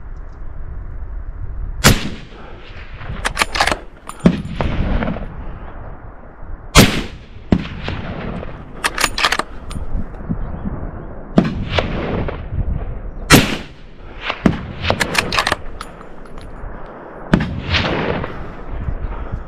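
A string of hunting gunshots, about a dozen, some single and some in quick runs of two or three, each followed by a trailing echo. A steady low rumble lies underneath.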